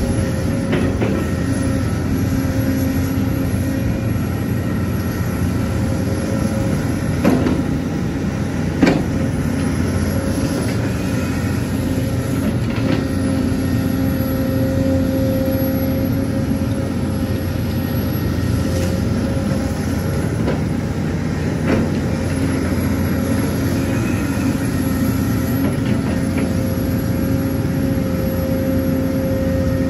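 Heavy excavator's diesel engine running steadily while it works, its hum swelling and easing as the load changes. There are a couple of sharp knocks about seven and nine seconds in.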